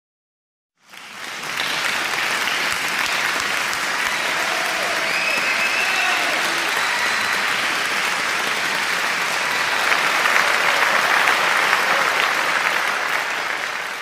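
Crowd applause that fades in about a second in and then runs steadily, swelling slightly near the end.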